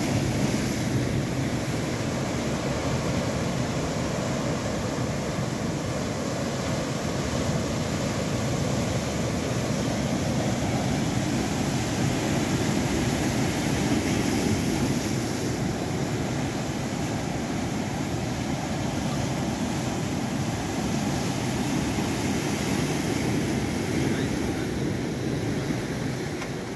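Steady rush of surf breaking and washing on the shore, mixed with wind on the microphone.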